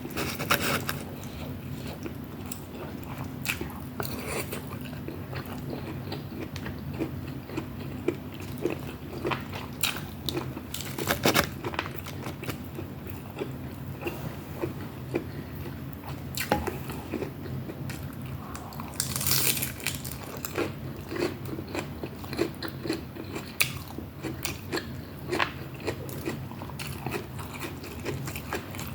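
Close-miked eating: a person biting and chewing food, with irregular crunches, clicks and wet mouth sounds.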